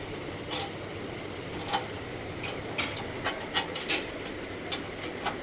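Parts of an industrial sewing machine stand being handled and fitted: about ten short, sharp clicks and knocks at uneven intervals, the loudest around the middle, over steady background noise.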